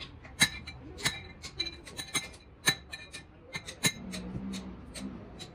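A hammer striking a long steel drift held inside the bore of a heavy truck wheel hub: a series of sharp, ringing metal-on-metal clangs, roughly two a second, that stop about four seconds in.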